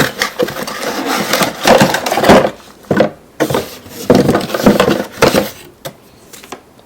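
Box packaging rustling and crackling as a power adapter is pulled out, in irregular bursts that are loudest about two seconds in and again around four to five seconds.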